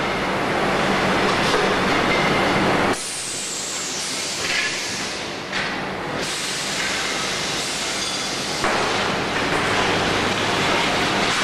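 Wheel rim plant machinery running, including a roll forming machine: a steady mechanical racket with hiss and a low hum. It drops and rises abruptly about three seconds in and again near nine seconds.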